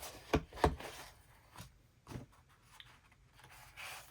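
Sheets of paper and chipboard being handled and set down: a few light taps and knocks, then a short rustle of paper near the end.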